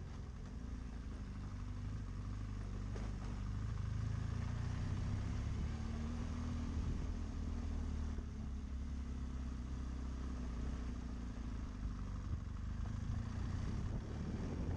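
BMW GS adventure motorcycle engine running at low, steady revs while riding slowly, getting a little louder around the middle.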